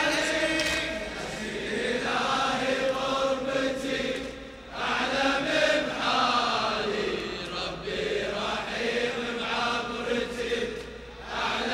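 A male reciter chanting a Husseini mourning lament (latmiya) into a microphone in long, sustained lines, with a crowd of men joining in.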